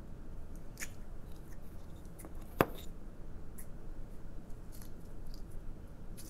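Hands opening a small plastic putty container and squishing the putty, with scattered small crackles and one sharp plastic click about two and a half seconds in.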